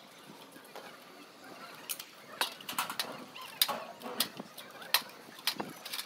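Crockery and steel dishes clinking as they are washed and handled: a scatter of sharp clinks starting about two seconds in.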